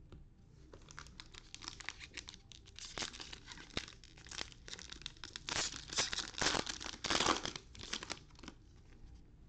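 Foil trading-card pack wrappers crinkling and tearing as they are ripped open by hand, a rapid run of crackles that is loudest about six to seven seconds in and dies away shortly before the end.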